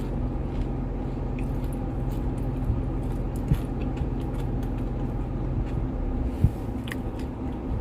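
Steady low hum of a running engine, heard from inside a vehicle, with a few faint clicks and taps from eating.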